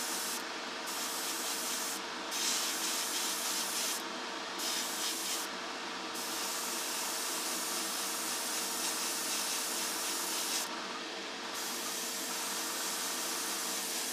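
Airbrush spraying a light mist coat of primer, its air hiss stopping briefly about five times, over the steady drone of a spray booth extractor fan.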